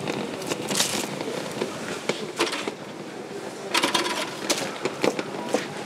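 Irregular clicks and knocks of hands-on food-stall work, with sharp knocks about half a second to a second apart and a short rustling patch about four seconds in.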